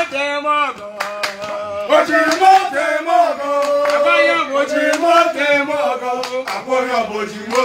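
Several men singing together, with held notes, and hand claps.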